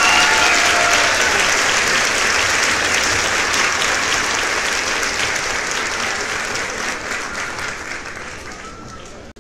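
A crowd applauding: dense, steady clapping that fades down over the last few seconds.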